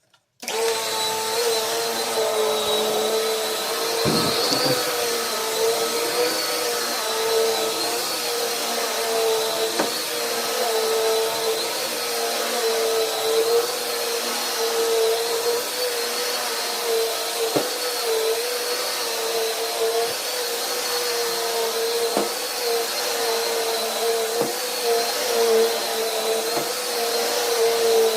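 Vacuum cleaner switching on and running steadily over carpet, a slightly wavering motor whine with a few faint ticks, during pre-vacuuming before carpet cleaning.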